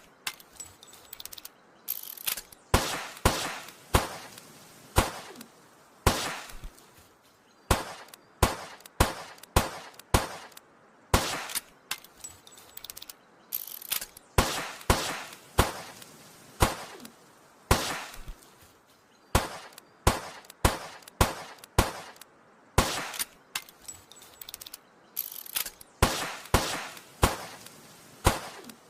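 Old revolver firing shot after shot, each a sharp crack with a short ringing tail. The shots come irregularly, about one or two a second, some in quick pairs.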